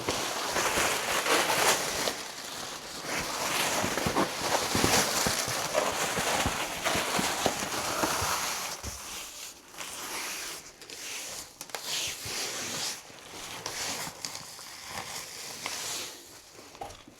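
Foil-backed flooring underlay being unrolled and handled, its foil crinkling and crackling irregularly. It is busier for the first nine seconds or so, then comes in scattered bursts.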